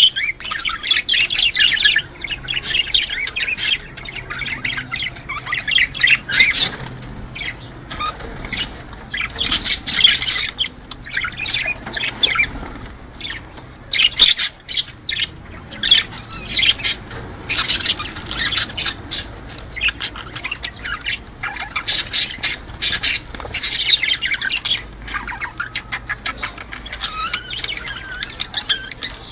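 A flock of small cage birds chirping and chattering in dense, overlapping bursts with short lulls: a breeding-stimulation recording of the kind played to pet birds to bring them into mating condition.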